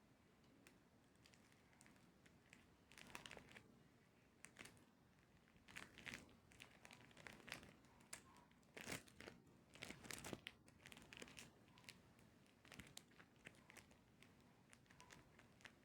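Faint crinkling and rustling of adhesive tape being handled, with brief scattered crinkles and a few tearing sounds.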